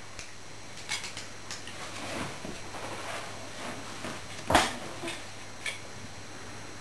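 A puppy's paws knocking a plate against a wooden floor, with claws clicking on the floorboards: a scatter of short clatters and clicks, the loudest about four and a half seconds in.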